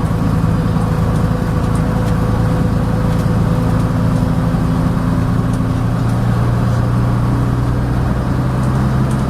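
Leyland Atlantean double-decker bus engine running steadily under way, its pitch stepping up slightly twice, with occasional light rattles.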